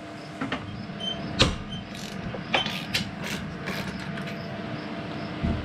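Hand socket ratchet working a 19 mm nut loose: a scattered series of sharp ratchet clicks as the handle is swung back and forth.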